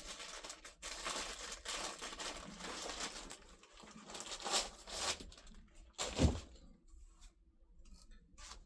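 Packaging rustling and crinkling as a cricket bat is taken out of its wrapping, then one dull knock about six seconds in.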